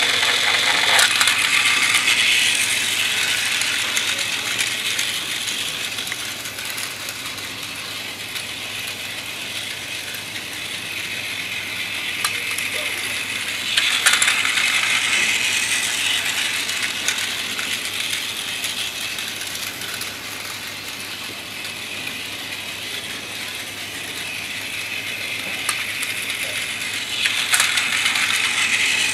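Plarail battery-powered toy train running on plastic track: a steady whirring of its small motor and gears with a light clatter of wheels on the track. It grows louder three times, roughly 14 seconds apart, as it passes close by.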